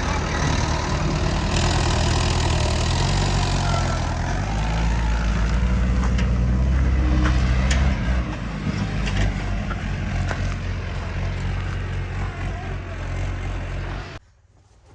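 Heavy diesel engine running steadily at high load. It eases off about eight seconds in and cuts off suddenly near the end.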